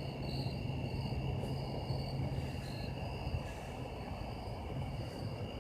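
Insects trilling steadily at a high pitch, over a constant low rumble of outdoor background noise.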